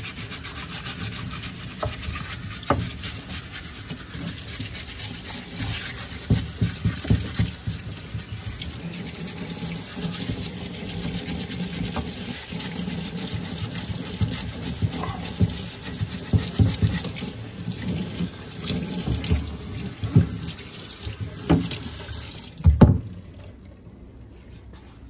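Tap water running from a hose into a utility sink, rinsing Evapo-Rust off a cast-iron exhaust manifold as it is scrubbed, with knocks of the heavy manifold against the sink. The water cuts off near the end, just after the loudest knock.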